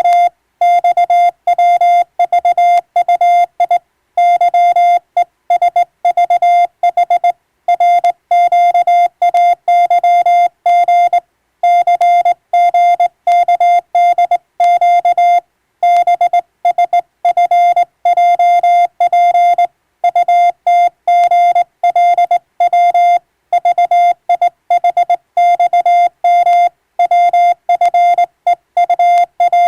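Morse code sent as a single mid-pitched tone keyed on and off in a fast stream of short and long beeps, with brief pauses between words.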